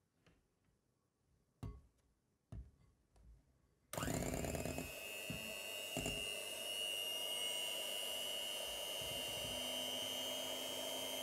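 A few faint knocks, then about four seconds in an electric hand mixer switches on and runs steadily with a high whine, its twin beaters whipping cream in a glass bowl.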